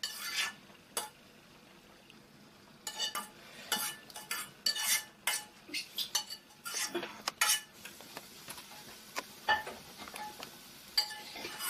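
Metal spoon scraping and clinking against a metal pan as boiled mushrooms are scooped out: a couple of strokes in the first second, then after a pause a quick run of harsh, grating scrapes and clinks from about three seconds in.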